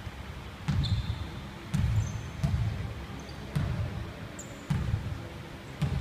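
Basketball bounced on a wooden gym floor, six dribbles about a second apart, each thump ringing in the large hall, as a player dribbles at the free-throw line before shooting. A few short high squeaks come in between the bounces.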